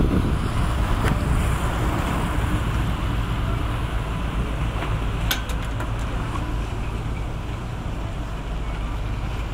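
Lake passenger boat under way: its engine running with a steady low drone, mixed with the rush of water and wind. A single sharp click about five seconds in.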